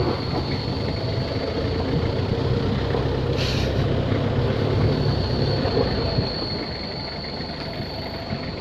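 A motor vehicle's engine running steadily, its low hum growing a little louder through the first few seconds and easing off after about six seconds, under a steady high thin whine.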